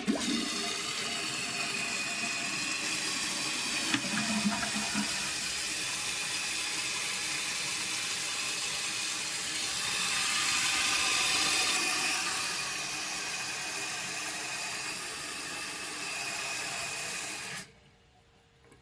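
1995 Mansfield Alto toilet tank refilling after a flush: the fill valve hisses steadily with a faint whistle as water runs in, then shuts off suddenly near the end once the tank is full.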